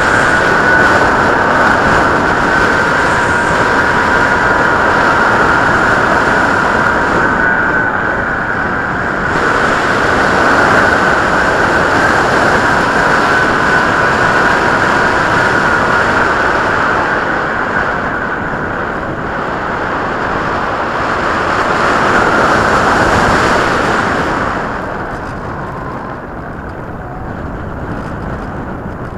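Skywalker RC plane's electric motor and propeller giving a steady whine in flight, with a heavy rush of wind. The whine dips slightly in pitch about a quarter of the way through, and the sound eases off in the last few seconds.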